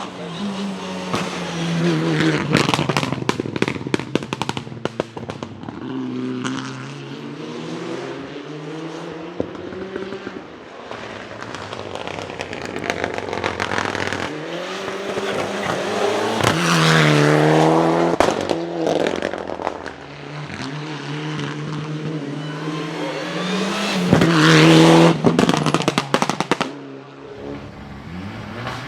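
Mitsubishi Lancer Evolution IX Group N rally cars' turbocharged four-cylinder engines revving hard and changing pitch through the gears. Their anti-lag misfiring systems fire off sharp bangs and pops, in clusters as each car passes, with three loud passes in all.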